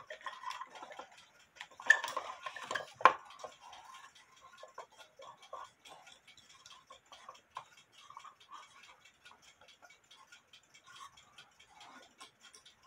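Small irregular clicks and taps of a metal tool and fingers working on a wooden cuckoo clock case and its bellows, with two sharper knocks about two and three seconds in.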